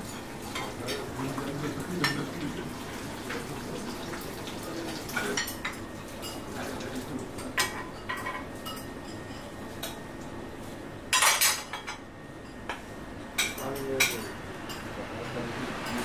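Metal ladles and spoons clinking against porcelain plates and a large steel serving tray as broth is ladled out and plates are passed along, in many scattered sharp clinks with a louder clatter about eleven seconds in.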